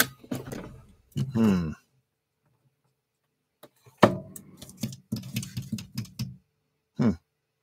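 Small clicks and knocks of an antique Dictograph unit's Bakelite base and metal housing being turned over and handled, with a few short wordless vocal sounds, a pause of about two seconds, and a clustered run of handling clicks in the second half.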